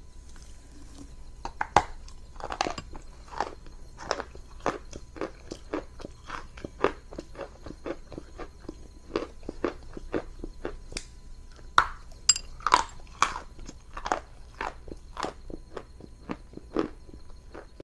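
Crunching bites and chewing of a chunk of dry chalk in water and cream: an irregular run of sharp crunches, about two to three a second, beginning about a second and a half in.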